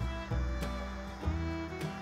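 Instrumental background music with a regular beat.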